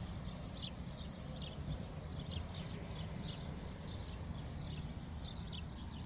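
A small bird calling over and over: short, high chirps that fall in pitch, about one a second. A steady low rumble sits underneath.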